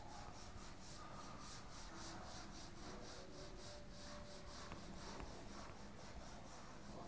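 Duster wiping a whiteboard in quick back-and-forth strokes: a faint, rhythmic swishing at about four strokes a second.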